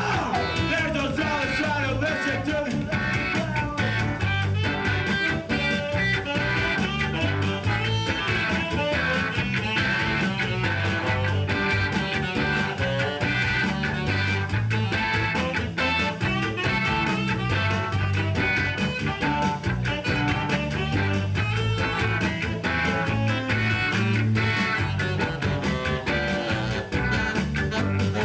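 Ska-punk band playing live: electric guitar, bass, drums and saxophone, with a steady driving beat.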